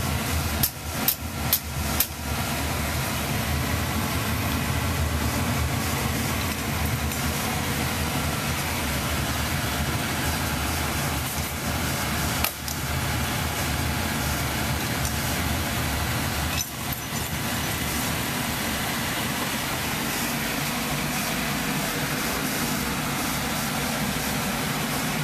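Oil burner firing in a cast-iron oil-fired boiler: a steady rumble of the burner fan and flame. A quick run of four sharp clicks comes near the start, then single clicks about halfway and two-thirds of the way through.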